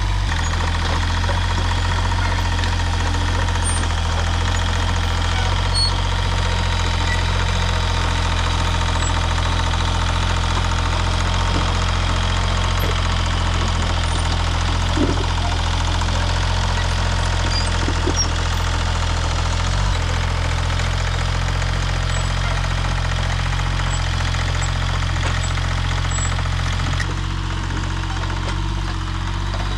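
Yanmar YB25 mini excavator's diesel engine running steadily as the machine tracks and grades with its blade. The sound drops a little near the end.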